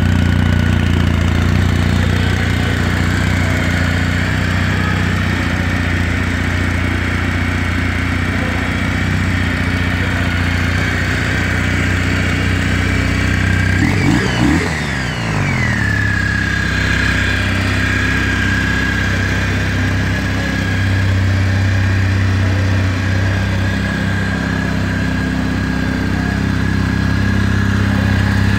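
Kawasaki W800 Cafe's air-cooled parallel-twin engine idling steadily through its dual pea-shooter exhausts, with a brief change in pitch about halfway through.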